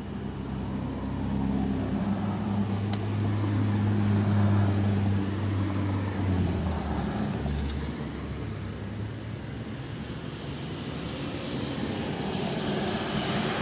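A motor vehicle passes by: a low engine hum swells to its loudest about four seconds in and fades out by about seven seconds, over steady traffic noise that rises again near the end.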